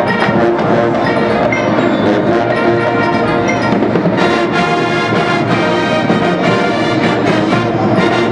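Marching band playing loudly: brass with drums, the brass coming in fuller and brighter about four seconds in.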